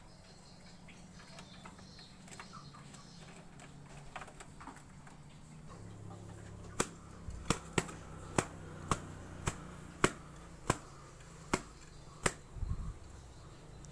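A series of about ten sharp clicks or taps, roughly one every half second to a second, in the second half.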